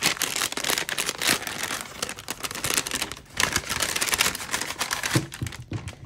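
A glossy pink polka-dot gift bag rustling and crinkling as hands open it and pull sticker sheets out, with a dense run of irregular crackles and clicks.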